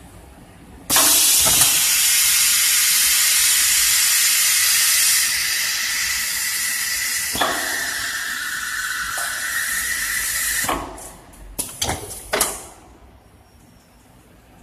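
Compressed air hissing hard on an automated assembly-line station, starting abruptly about a second in and running for nearly ten seconds, with a shift in tone partway through. Three short pneumatic exhaust puffs follow near the end.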